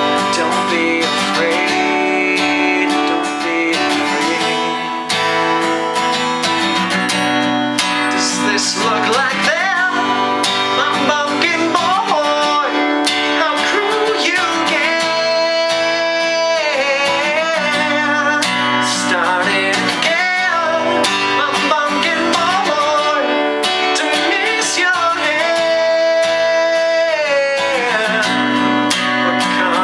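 Acoustic guitar strummed steadily. From about eight seconds in, a voice sings over it, holding long notes.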